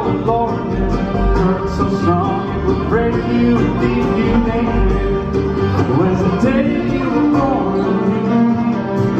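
Live bluegrass band playing: fiddle, mandolin, banjo, upright bass and acoustic guitar.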